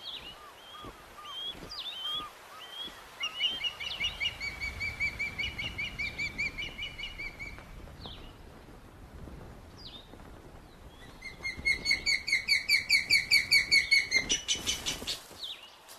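Ospreys calling: short high whistled chirps, then two long runs of rapidly repeated piping notes at about four a second, with a few single calls between them and a quicker rattle of notes near the end.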